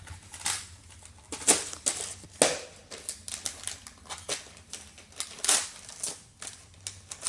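Wrapping paper on a present crinkling and rustling in short, irregular crackles as a child's fingers handle the package and pick at the wrapping.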